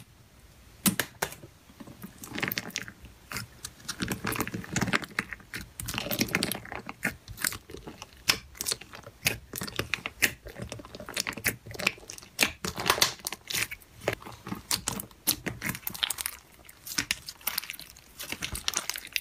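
Thick white slime with small beads mixed in, squeezed, stretched and folded by hand. From about a second in it makes a dense, irregular run of crackles and pops with soft squelches between them.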